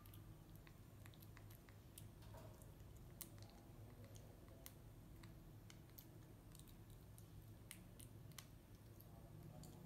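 Faint, irregular wet clicks and smacks of a baby macaque chewing banana, over a low steady hum.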